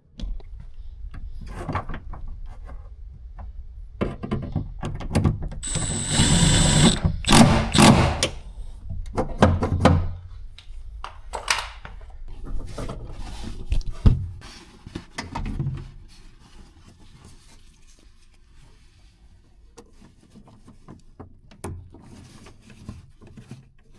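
Parts of a car door's handle mechanism being refitted by hand: a string of clicks, knocks and rattles of plastic and metal pieces, busiest and loudest between about four and ten seconds in, then scattered lighter knocks.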